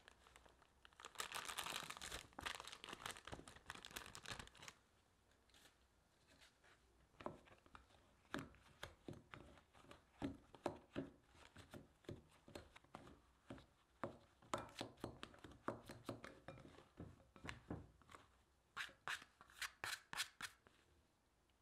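Two plastic bench scrapers chopping cold butter into corn flour mix in a glass bowl: a run of short scraping taps, a couple a second, quicker near the end. A dense rustling burst in the first few seconds, as the butter goes in.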